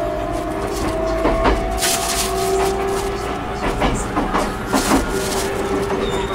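Inside an E127 series electric train under way: the Toyo Denki GTO-thyristor VVVF inverter whines in a tone that rises slowly, then holds steadier. Wheels clack over rail joints and points, several times around the middle.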